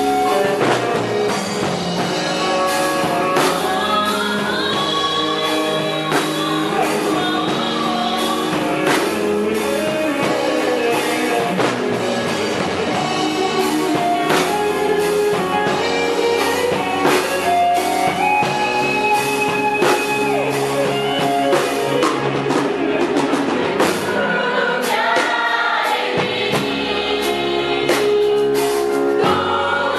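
Gospel worship song played live: voices singing over a band with electric guitar and drum kit.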